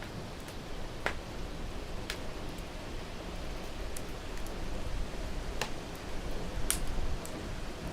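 Wood fire crackling in a fireplace, with a sharp pop every second or so, over a steady hiss of rain.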